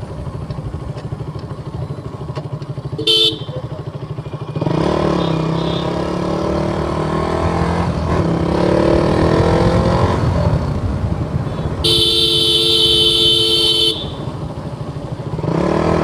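KTM Duke 200's single-cylinder engine running at a low, even beat, then pulling away about four and a half seconds in, its pitch rising in two runs as the bike accelerates. A short horn toot sounds just after three seconds, and a longer, steady horn blast of about two seconds comes near the end, after which the engine picks up again.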